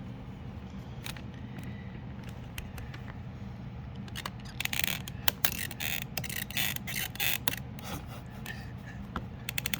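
Plastic and metal parts of a fuel pump hanger being handled and fitted by hand: a run of light clicks and scrapes from about four seconds in, over a steady low hum.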